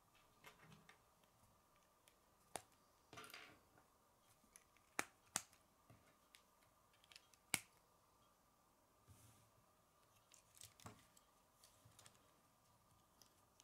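Plastic K'nex pieces clicking as they are snapped together and handled: a few sharp, separate clicks several seconds apart, with a short rattle about three seconds in.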